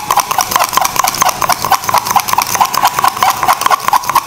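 Metal spoon clinking rapidly against a steel tumbler as instant coffee, sugar and warm water are beaten by hand into dalgona foam: an even run of several ringing clinks a second.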